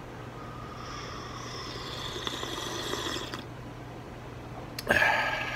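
A long slurping sip from a ceramic mug, lasting about three seconds and stopping abruptly, over a steady low hum. Near the end comes a sudden sharp click, the loudest moment, followed by a brief sound with several tones.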